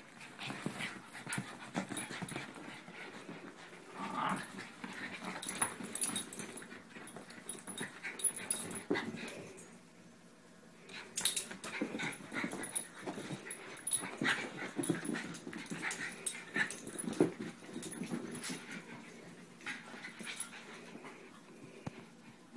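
Two small dogs play-wrestling, with irregular bursts of dog noises and scuffling. There is a short lull a little before halfway, ended by one sharp, loud sound.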